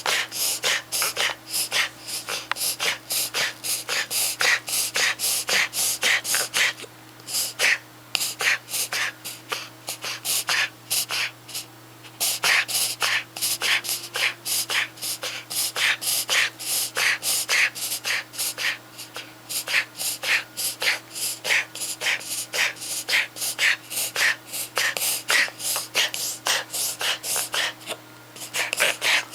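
Small puppy in a paroxysmal breathing episode: rapid, noisy gasping breaths about three a second, broken three times by pauses of about a second. The owner is unsure whether it is a reverse sneeze or a cough that has lasted over a month.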